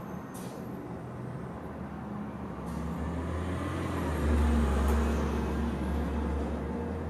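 Motor vehicle passing on the street, its low engine rumble swelling to a peak about four seconds in and then fading.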